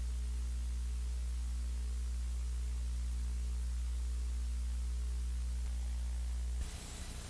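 Steady low electrical hum with several harmonics from the VCR's audio line while it sits idle. About six and a half seconds in, the tape starts playing and the hum gives way to tape hiss with a rough low rumble from the blank start of the tape.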